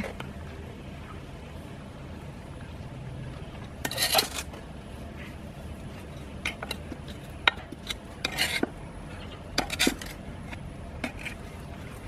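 Hand trowel scraping and digging soil out of a large pot, in a few short scrapes a second or two apart with sharp clicks of the blade against the pot.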